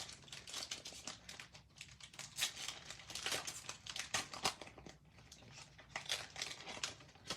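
Trading card pack wrapper crinkling and tearing as it is opened and handled, in a string of short crackles.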